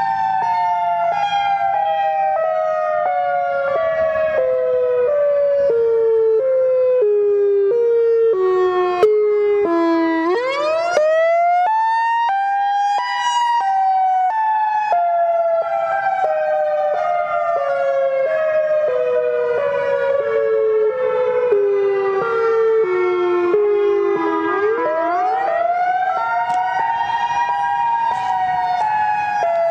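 Siren with a long wail that falls slowly, in small steps, then sweeps quickly back up to a high pitch: once about ten seconds in and again near the end.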